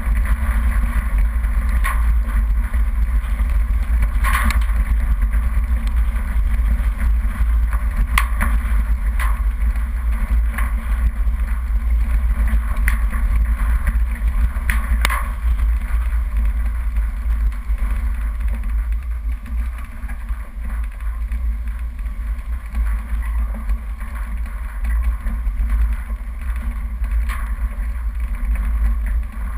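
Off-road 4x4 driving down a rough dirt track, heard from inside the cabin: a steady low engine and road rumble, with a few sharp knocks and rattles as the vehicle jolts over stones and ruts.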